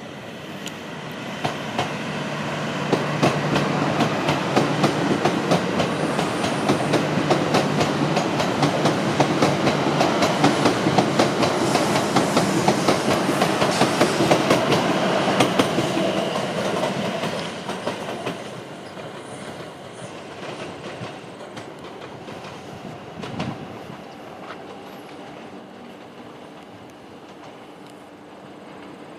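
Akita Shinkansen E6 series Komachi train pulling out and running past, its wheels clacking over rail joints in a long run of evenly spaced clicks. The sound builds over the first few seconds, stays loud for about a quarter minute, then fades as the train draws away.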